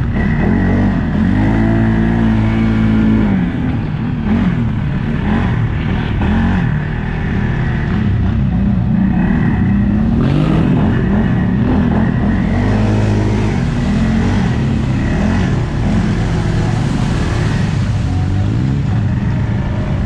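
Off-road vehicle engine revving up and down under load, its pitch climbing and falling repeatedly, with the strongest surges about two seconds in and again around thirteen seconds in.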